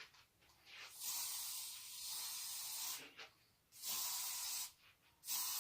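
Aerosol hairspray can spraying onto styled hair in short hissing bursts: one long spray of about two seconds, a shorter one, and a third starting near the end.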